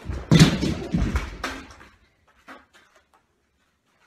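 Heavy thud of a person's body slamming into a drywall wall, punching a hole through it, then a second thump about a second in as he comes down on the wooden floor, followed by a few light knocks.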